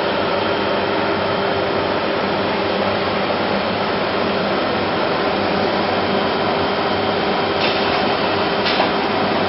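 ATC CNC router machinery running: a steady mechanical hum with a constant whine, broken by two short hisses near the end.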